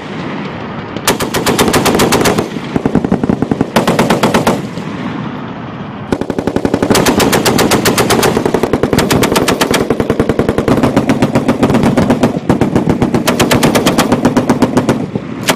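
M2 .50-calibre heavy machine guns firing repeated bursts of rapid, automatic fire, with quieter gunfire carrying on between the louder bursts.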